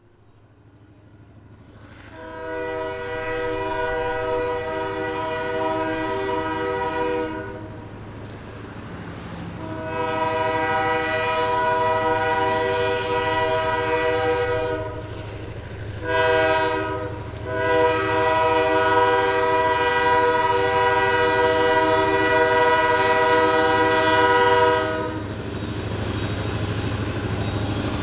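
Diesel freight locomotive's air horn sounding the grade-crossing signal: two long blasts, one short, then a final long one, over the low rumble of the engine growing as the train approaches.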